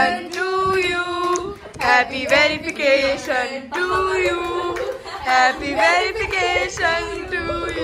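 Several women singing a celebratory song together, with hand-clapping.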